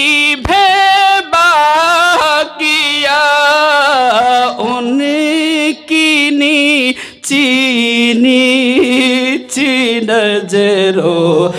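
A man singing a naat in Urdu, drawing out long, ornamented notes with a wavering vibrato and short breaks for breath between phrases.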